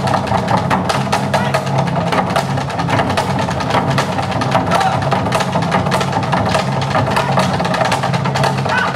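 An ensemble of Korean buk barrel drums beaten rapidly with sticks in a dense, driving rhythm, over a steady low drone.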